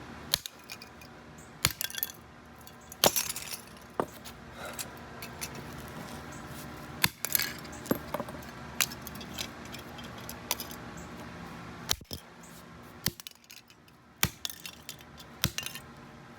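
A metal door handle being smashed on concrete: about a dozen sharp metallic strikes at irregular intervals, with metal pieces clinking and rattling between them.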